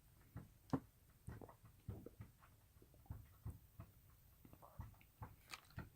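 Faint, irregular small clicks and soft low thumps of a person drinking water: swallowing and a water container being handled.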